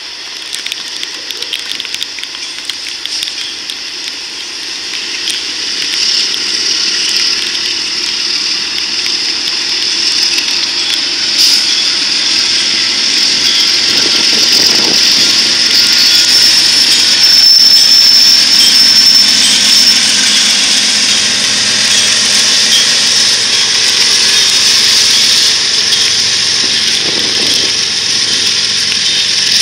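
Rear DPU diesel-electric locomotive of a BNSF grain train passing close by, with hopper car wheels rolling on the rails. The engine noise grows steadily louder for about the first half, peaks, then holds, with a thin high whine briefly about halfway through.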